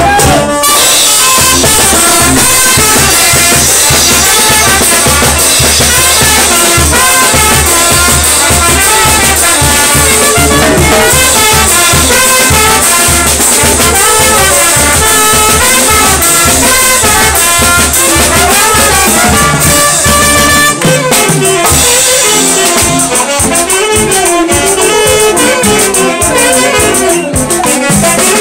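Loud brass band music: trumpets and trombones playing a melody over a steady drum beat.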